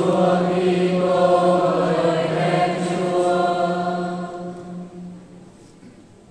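Voices chanting a sung liturgical response in unison, on long held notes, fading out about five seconds in.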